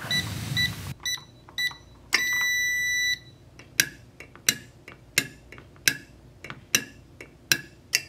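SK-1011-SDQ access control keypad beeping: several short key-press beeps, then one steady beep about a second long as a valid code is accepted and the relay releases the fail-secure electric door strike. Then the strike's keeper is pushed open and springs back, giving about seven sharp metallic clicks, evenly spaced.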